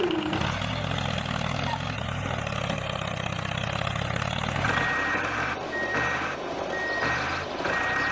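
Tractor engine sound running steadily, with a whine that glides down and stops right at the start. From about five seconds in, a vehicle reversing alarm beeps about once a second, four times.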